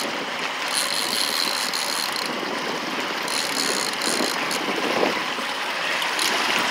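Fishing reel being cranked steadily, a continuous ratcheting mechanical whir, as a hooked fish is drawn up to the landing net.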